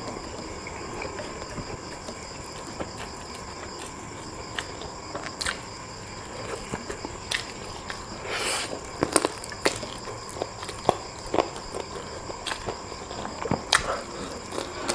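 A person eating spicy chicken feet close to the microphone: irregular wet chewing and mouth clicks, with a short breathy slurp about eight and a half seconds in.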